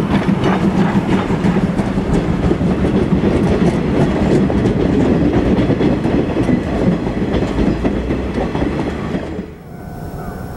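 Steam-hauled passenger train of the C11 325 tank locomotive rolling past close by: a steady rumble with the wheels clattering irregularly over the rail joints. About nine and a half seconds in it cuts off suddenly to a much quieter background with a faint steady tone.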